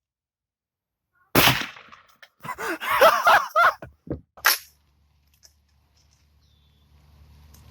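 A single sudden loud bang about a second in, fading over half a second. It is followed by a stretch of voice-like yelling and then a second short, sharp noise.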